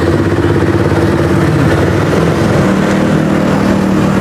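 A motor vehicle engine running steadily close by, with an even low pulsing. A second engine tone joins a little past halfway.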